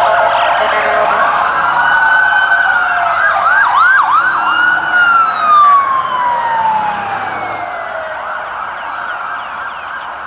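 Several emergency vehicle sirens wailing at once, overlapping, with a quick yelping stretch about four seconds in and then one long falling wail. The sirens fade gradually toward the end.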